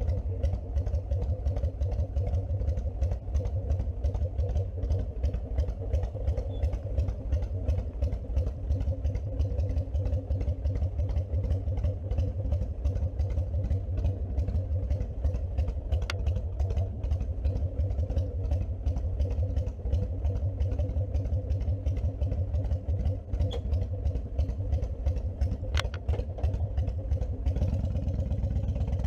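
Honda VTX1300C's V-twin engine running, with a steady, rapid low exhaust pulse.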